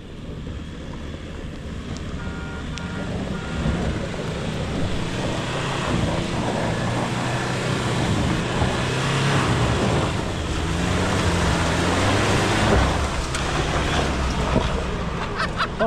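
Toyota Fortuner's diesel engine pulling under load up a rutted dirt slope, growing steadily louder as the SUV climbs toward the microphone, with wind noise on the microphone.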